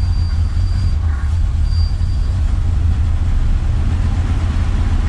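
1977 Chevrolet C10's small-block Chevy V8 running steadily with a deep low rumble, just brought back to life and still in need of tuning. A faint high whine sounds twice in the first couple of seconds.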